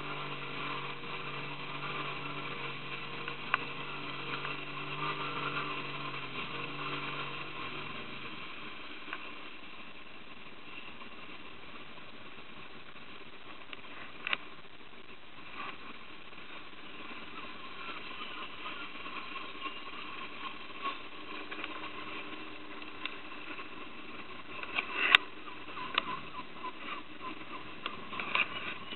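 A small boat's motor running with a steady hum that drops away about eight seconds in. After that comes a steady hiss of water moving past the hull, with a few sharp knocks, the loudest near the end.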